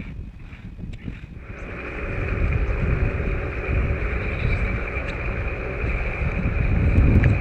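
Wind buffeting the microphone over the steady hum of a boat's outboard motor, the rumble swelling to its loudest near the end.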